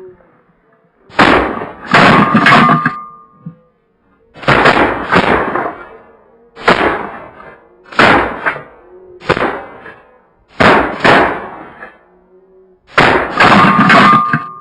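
A volley of shotgun fire from several hunters shooting at incoming snow geese: about fifteen loud shots in quick pairs and triplets, with short gaps between clusters.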